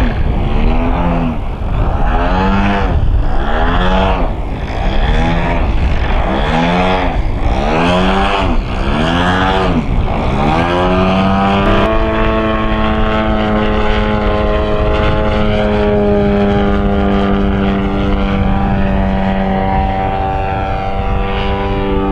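Yak 54 RC aerobatic plane's DA-50 single-cylinder two-stroke petrol engine, fitted with a quieter Zimmerman exhaust pipe, running in flight. For about ten seconds its pitch rises and falls over and over, about once a second, then it holds a steady note that drifts slowly.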